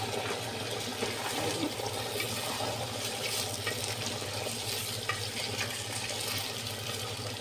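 Potatoes deep-frying in hot oil: a steady sizzle with a few small crackles.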